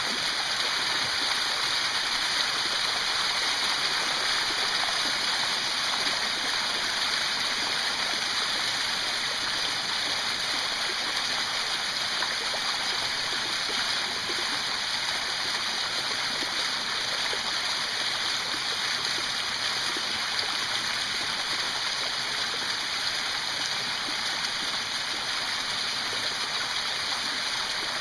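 Mountain stream rushing and splashing over small rock cascades close by, a steady hiss with no breaks.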